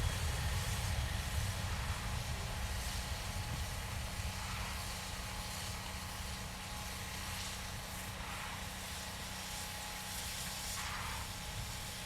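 Low rumble of a Boeing 767-300ER's GE CF6 turbofan engines after takeoff, slowly fading as the jet moves away.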